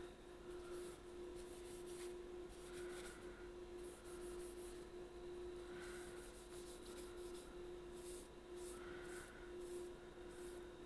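A folded paper pad rubbed back and forth by hand over the wooden body of an Albert-system clarinet. The strokes are faint and scratchy and come in short runs with brief pauses between them.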